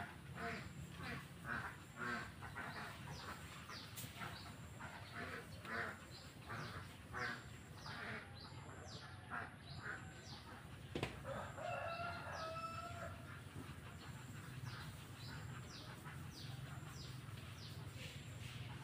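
Chickens clucking in short repeated calls, with a rooster crowing once about twelve seconds in and a single knock just before it, over a steady low hum.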